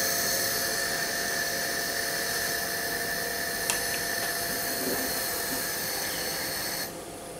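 A steady high-pitched mechanical whine over a constant hiss, with one sharp click about halfway through; the whine and hiss cut off suddenly near the end.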